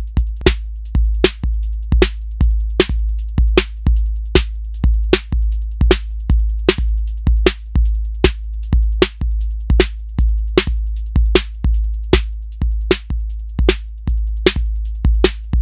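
Electronic drum loop from a Eurorack modular synth, running through a home-patched compressor: an envelope signal from the drums drives a VCA, so the level ducks on each kick and swells back up, a pumping compression. Steady, even rhythm of sharp hits over a deep kick, as the control path's high-pass filter is being tuned to tame the clamping.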